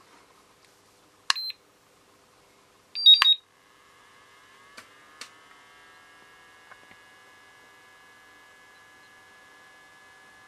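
Hobby battery charger beeping as its buttons are pressed: a short high beep, then a louder double beep about three seconds in, as a 0.1 A NiMH charge is started. A couple of soft button clicks follow, and then a faint steady high whine.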